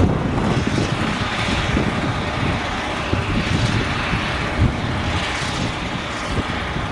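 Claas Jaguar 970 forage harvester's V8 engine running steadily under load while its Orbis 600 header and chopper cut sorghum and blow it into a trailer. It makes a dense, even mechanical drone.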